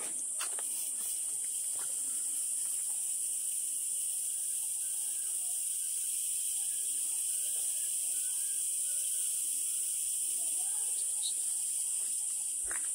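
Steady high-pitched drone of insects, with faint short chirps scattered through the middle and a footstep on stony ground near the end.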